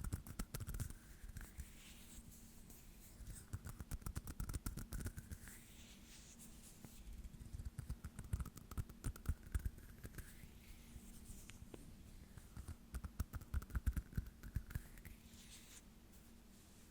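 Close-miked ASMR hand sounds: skin of palms and fingers rubbing and scratching, heard as fine crackling ticks in four bursts with quieter gaps between.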